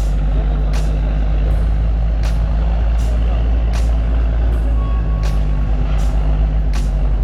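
Heavy diesel engine running with a steady, loud low rumble. A sharp click recurs evenly about every 0.7 seconds.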